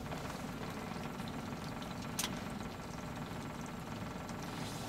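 Boat engine idling steadily, a low fluttering rumble, with one sharp click about two seconds in.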